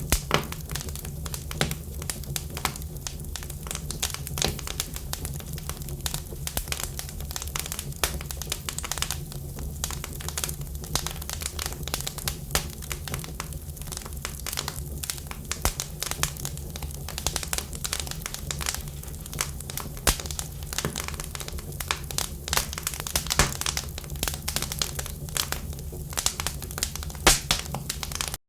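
Wood fire in a fireplace crackling: dense, irregular snaps and pops with a few sharper cracks, over a steady low rumble of the flames.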